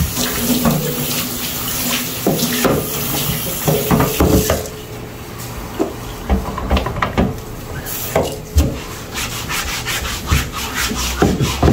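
A cutting board being scrubbed in the sink: rasping, rubbing strokes with scattered knocks, heaviest in the first half, easing off, then another short scrubbing burst.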